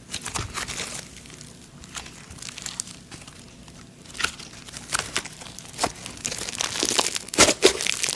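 Thick snow butter slime being stretched and squished by hand, giving a fine crackling sizzle. The crackles are sparse at first and grow busier and louder from about halfway.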